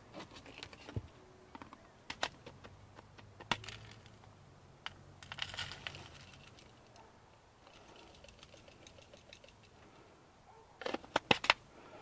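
Light clicks and knocks of a Cherylon handheld car vacuum's stainless dust canister being opened and handled, with a short rustle of dirt and debris tipping out onto a paper plate about five seconds in. A quick run of sharp clicks comes near the end.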